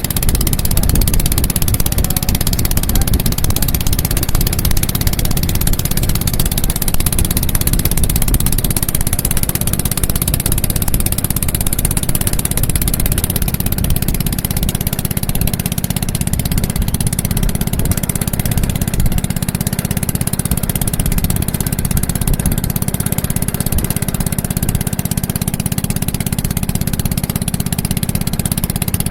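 Small boat's motor running steadily at an even speed, a loud continuous drone.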